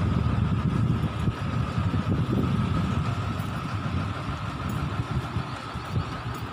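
Vehicle engine running at low speed: a steady low rumble with a faint, constant high whine, easing slightly toward the end.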